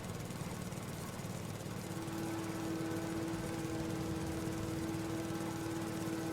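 Husqvarna riding mower's engine running steadily while mowing grass, with a steady whine that joins about two seconds in.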